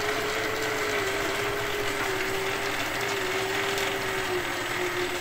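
Electric motocross bike's motor running with the rear wheel spinning free on a stand, driving the jackshaft and chain: a steady motor whine over a constant mechanical rattle, the whine's pitch sagging slightly toward the end. This is the motor's first successful run after its peak torque setting was corrected.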